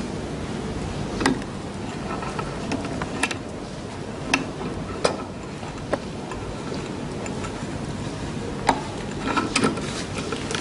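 Irregular sharp clicks and taps, about eight of them with a small cluster near the end, over a steady low background noise.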